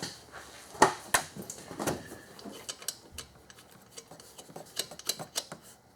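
Small metal parts such as bolts and hand tools clinking and tapping against each other and on metal: a few sharp clinks about a second in, then a run of lighter, irregular clicks.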